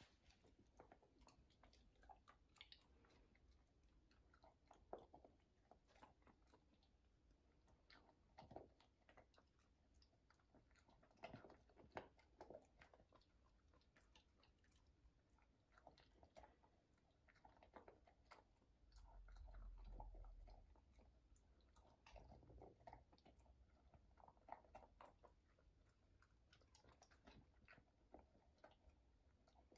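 Working cocker spaniel eating dry kibble from a bowl: faint, irregular crunching and chewing with small clicks. A brief low rumble comes about two-thirds of the way in.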